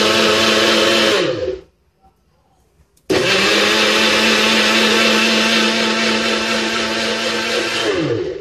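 Single-serve blender motor running at full speed, blending a liquid smoothie. It runs about a second, winds down and stops, then after a second and a half of quiet starts again suddenly and runs about five seconds before winding down near the end.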